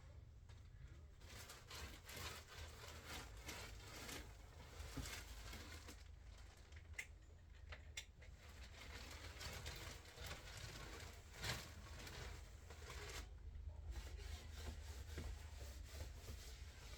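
Plastic sheeting over a mattress rustling and crinkling as it is wiped down with disinfecting wipes, in faint, irregular strokes with a few sharper clicks, the loudest about two-thirds of the way in. A low steady hum lies underneath.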